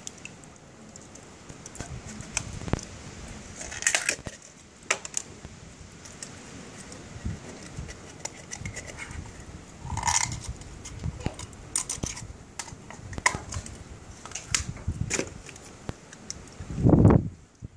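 Knife scraping and prying at razor fish shells: scattered clicks, scrapes and cracks of blade on shell, with a heavy low thump near the end.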